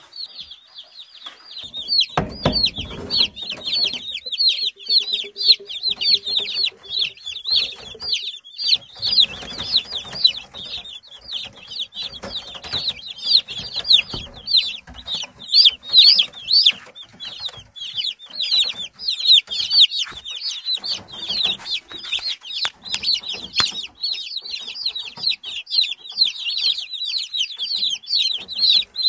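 A brood of Cobb 500 broiler chicks peeping constantly, many high-pitched peeps overlapping several times a second. A brief knock and rustle comes about two seconds in.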